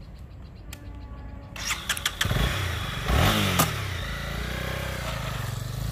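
Honda CB300R's single-cylinder engine ticking over, then revved as the motorcycle pulls away: it gets louder about two seconds in, the revs fall back after a peak, and it settles into a steady run.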